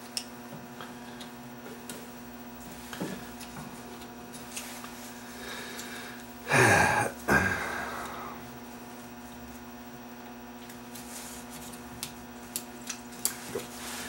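Small plastic clicks and scraping as a screwdriver pries a failed door interlock switch out of a microwave's plastic latch bracket, over a steady electrical hum. A louder noise lasting about a second comes about six and a half seconds in.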